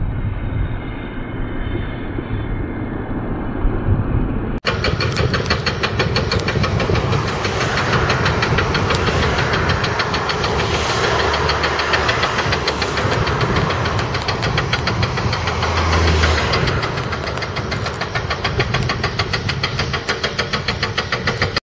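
Heavy construction machinery working: excavator diesel engines running with clatter. About five seconds in, the sound cuts to a different recording with a fast, steady knocking.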